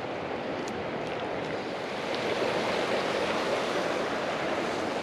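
Mountain creek water running steadily, a little louder from about two seconds in.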